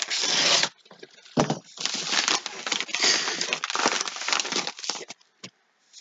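A kraft mailer envelope being torn open by hand: a loud rip at the start, then about three seconds of paper and plastic crinkling as cards in a plastic sleeve are pulled out.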